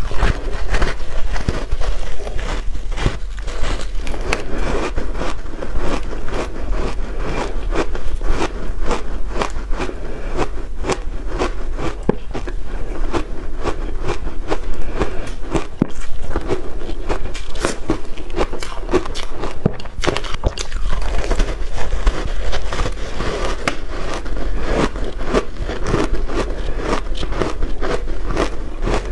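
Block of shaved ice dusted with matcha powder being bitten and chewed: a dense run of many quick crunches and crackles, several a second.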